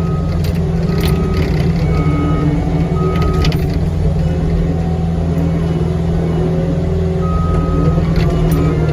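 Caterpillar 259D3 compact track loader's diesel engine running steadily under work, with its backup alarm beeping about once a second for the first few seconds and again briefly near the end as it reverses. A few sharp clanks from the machine are heard among the engine sound.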